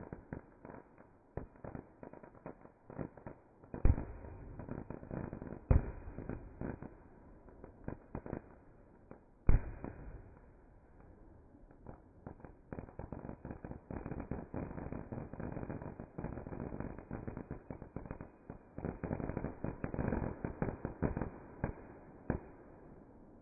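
Aerial fireworks shells bursting and crackling: a dense crackle of many small pops, with three much louder bangs about four, six and nine and a half seconds in. The whole sound is dull and muffled, with no treble.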